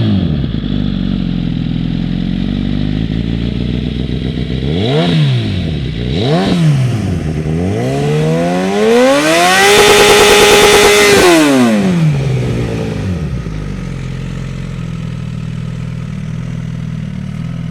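Suzuki GSX-R1000 inline-four with a stainless aftermarket exhaust being revved. The engine drops from high revs to idle and is blipped twice in quick succession. It is then run up and held at high revs for about two seconds before falling back to a steady idle.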